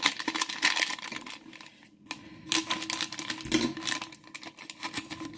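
Foil Lego minifigure blind-bag crinkling as it is handled and squeezed in the hands, a run of irregular quick crackles.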